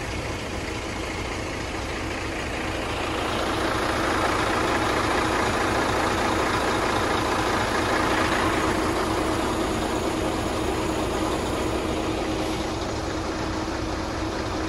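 Diesel engine of a truck-mounted concrete pump running steadily, a constant drone with a fixed low hum. It grows louder a few seconds in and eases back near the end.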